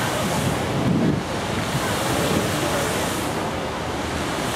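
Fountain jets splashing into a large pool, a steady rush of falling water, with wind buffeting the microphone.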